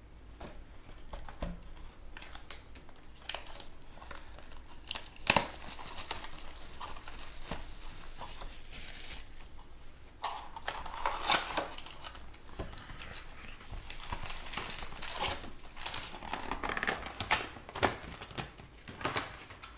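Panini Mosaic football hobby box being handled and its foil card packs taken out and stacked, with crinkling and tearing of wrapping and packs, and many sharp clicks and knocks. The loudest snaps come about five and about eleven seconds in.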